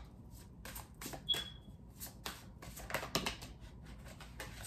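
Tarot cards being shuffled by hand: an irregular run of light clicks and slaps, busiest about a second in and again near three seconds. A short high tone sounds briefly about a second in.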